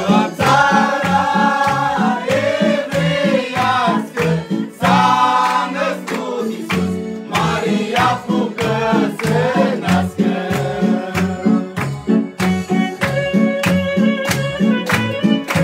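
A small group of men and women singing a Romanian Christmas carol (colindă) together, over an instrumental accompaniment with a steady beat.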